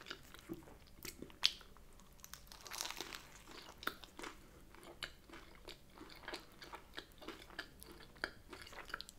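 Chewing and biting into a brioche bagel sandwich filled with crisp air-fried bacon and cream cheese, a run of small clicks and mouth noises with a sharper click about one and a half seconds in.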